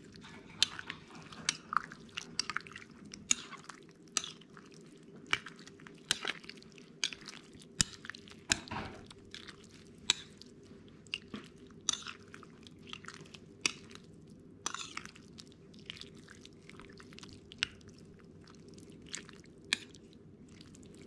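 A person chewing and smacking while eating a bowl of rice porridge, close to the microphone: irregular wet mouth clicks, a few every second, over a faint steady hum.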